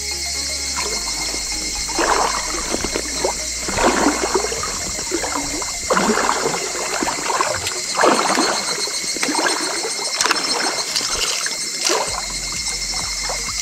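Water sloshing and splashing in regular strokes about every two seconds as a float tube is propelled across the water.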